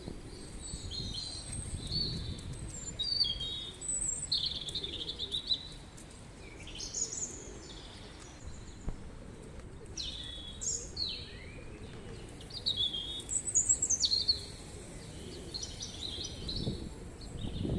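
Small birds chirping and twittering in many short, high calls, several of them sliding down in pitch, over a low steady background rumble.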